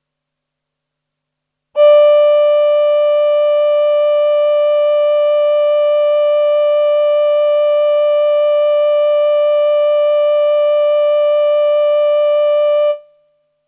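Roland VP-330 vocoder-synth playing its Human Voice Male choir patch: one high note starts suddenly about two seconds in and is held steady for about eleven seconds, its upper overtones wavering slightly, then fades out quickly near the end.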